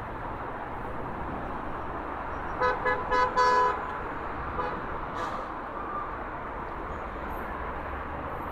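A car horn honks about two and a half seconds in: a few quick toots and then a longer one, over steady street traffic noise.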